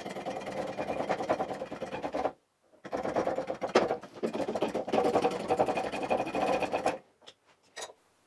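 Workshop press running with a fast, even whir as its ram comes down and presses the driven gear off a Makita GA5030 angle grinder's spindle. It stops briefly about two seconds in, runs again until near the end, then stops, followed by a couple of light clicks.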